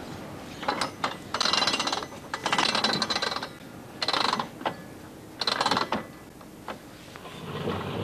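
A railway boxcar's hand brake wheel being cranked in about five short turns, its ratchet and pawl clicking rapidly with each turn as the brake is applied by hand. A low train rumble rises near the end.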